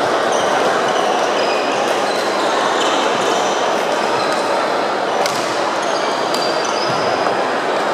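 Steady din of a crowded badminton hall, with sneakers squeaking on the wooden court and sharp racket-on-shuttlecock hits, the clearest about five and six seconds in.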